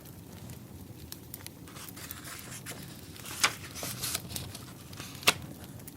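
Wood fire crackling: a low steady hiss with scattered sharp pops, the loudest about three and a half seconds in and again past five seconds.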